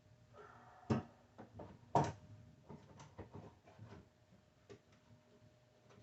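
Wooden knocks and clicks as a pine drawer face is handled and set against the cabinet: two sharper knocks about one and two seconds in, with lighter taps between and after.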